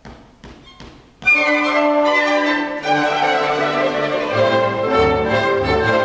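A few faint clicks, then about a second in a string orchestra comes in suddenly and loudly, with violins leading a brisk light-classical tune.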